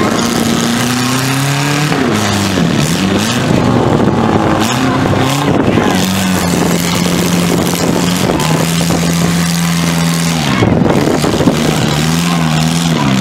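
Compact demolition-derby car engines revving up and down as the cars manoeuvre and ram, one engine held at steady revs for several seconds in the middle. A sharp bang near the end.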